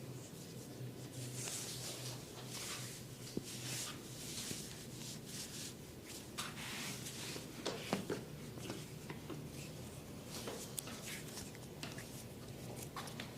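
Hands massaging skin and hair: a run of soft swishing rubbing strokes, with several sharp clicks and taps between them, the loudest about three and eight seconds in.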